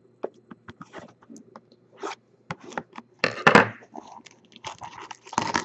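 Sealed cardboard trading-card box being slit open with a pocket knife and its plastic wrap torn and pulled off: scattered clicks and scrapes, with a longer, loud tearing noise about three seconds in and another near the end.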